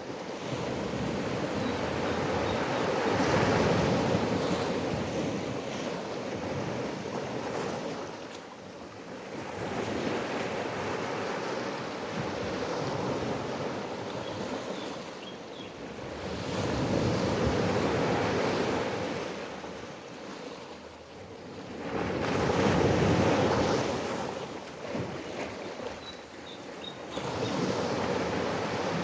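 Ocean waves breaking and washing up in slow swells, one every six or seven seconds, with a few faint high bird chirps.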